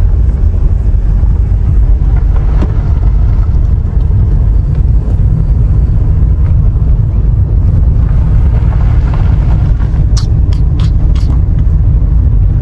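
Steady low rumble of a car being driven, with a short run of sharp clicks about ten seconds in.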